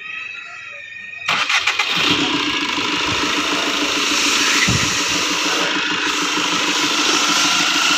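Tata Zest engine cranked by its starter for under a second, catching and settling into a steady idle. It fires up after a wiring fault that kept the car from starting has been repaired.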